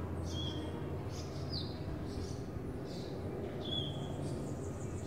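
Small birds chirping: short high calls, each with a quick falling sweep, repeated about once or twice a second over a steady low background rumble of street ambience.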